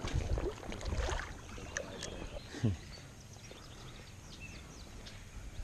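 Lake water lapping and sloshing around a wading angler, with an irregular low rumble of wind on the microphone and a few faint high chirps.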